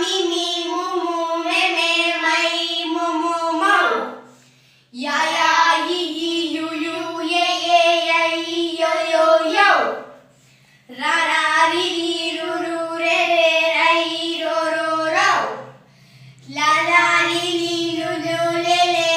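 A child and a woman singing Tamil reading-practice syllables and words together, with hand actions, in long held notes. The phrases last about five seconds each, with short breaks between them.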